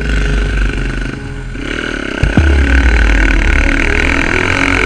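Quad bike's engine running under throttle as it is ridden across sand. It eases off after about a second, then revs back up sharply just past two seconds and keeps pulling steadily.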